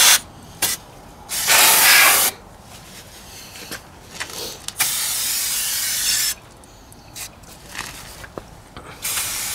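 Aerosol can of brake cleaner spraying in hissing bursts onto a new front brake disc, degreasing it of factory grease: a few short puffs and two longer sprays of about a second or more.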